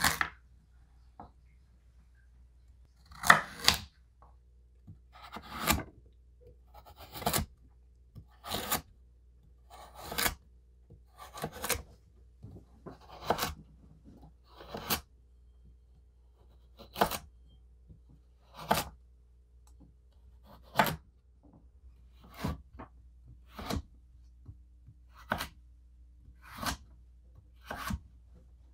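Victorinox chef's knife cutting through raw carrots and meeting a wooden cutting board: a short crisp crunch with a knock about every second and a half, a few cuts made in two quick strokes.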